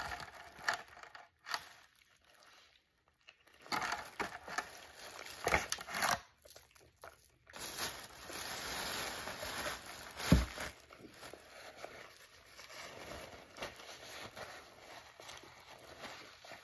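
Quiet eating sounds, biting and chewing a thick cheeseburger on toasted Texas toast, with small clicks throughout. About eight seconds in, paper rustles as a napkin is taken from a paper takeout bag, and there is a single low thump just after.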